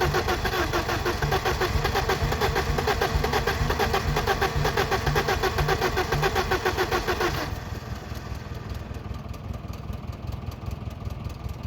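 BMW E34's starter motor cranking the engine in an even, fast rhythm without it starting. The cranking stops suddenly about seven seconds in, leaving a quieter steady sound.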